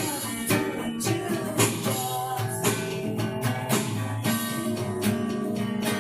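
Guitar music: plucked notes and strums over a steady beat.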